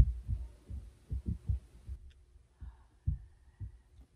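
Children stomping around on the floor upstairs, heard through the ceiling as irregular dull, low thumps, several a second, thinning out in the second half.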